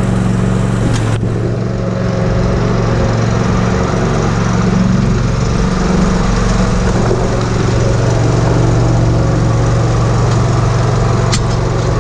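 Zero-turn lawn mower engine running steadily, its pitch shifting a little partway through, with a brief click near the end.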